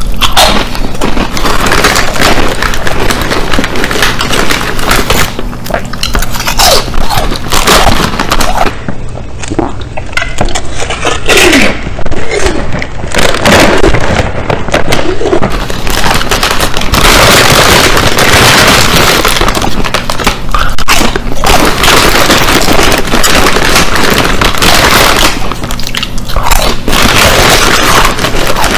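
Ruffles ridged potato chips being bitten and crunched in the mouth, loud and crackly, chewing over and over. Around the middle a hand digs into the foil chip bag, crinkling it.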